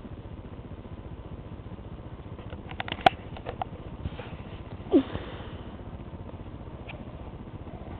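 Plastic K'nex pieces clicking as the model is handled: a quick run of sharp clicks about three seconds in, then a short falling squeak or sniff about two seconds later, over a steady low hum.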